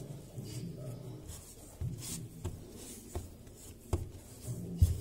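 Hands kneading and pressing a ball of shortcrust pastry dough on a floured worktop: soft rubbing with a few dull thumps, the loudest near the end.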